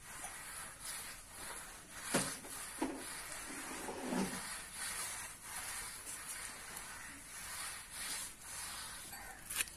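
A hand rubbing a wet mud wash over an earthen floor: soft, steady smearing, with a couple of short knocks about two seconds in.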